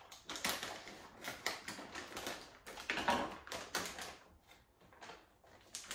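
Groundbait bag being opened and handled: irregular crinkling and crackling of the packaging, dying down after about four seconds.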